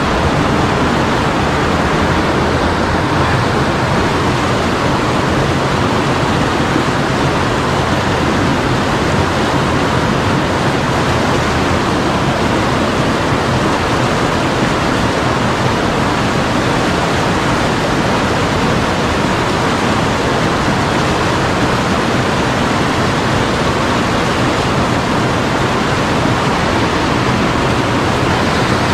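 Mountain stream water rushing, a steady, even rush with no change.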